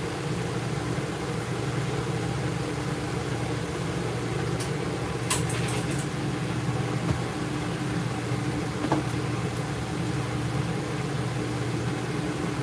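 Steady low machine hum with a constant tone, from the running equipment of a mobile grooming van. A sharp click comes about five seconds in and a lighter one near nine seconds.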